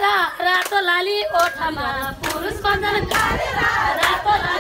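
A group of women singing a Nepali Teej folk song together, with hand clapping along to it. The sung line is clearest in the first half, then becomes a busier mix of many voices.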